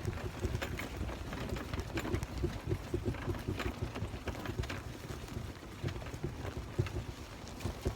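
Footsteps at a steady walking pace on a trail surface, with a low rumble underneath.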